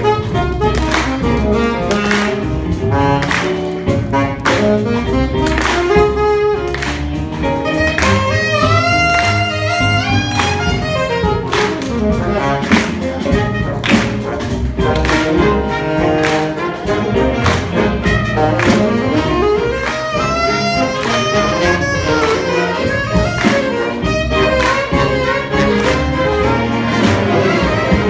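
Live high school jazz big band playing, with a standing alto saxophone soloist improvising melodic runs over the rhythm section, cymbals keeping a steady beat.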